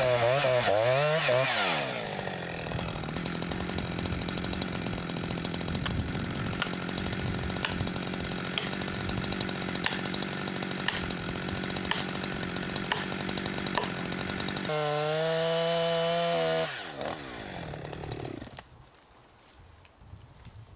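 Gas chainsaw running and cutting, its engine pitch wavering at first and then holding steady for a long stretch. A louder steady burst comes near the end, then the engine pitch falls away and the sound drops off.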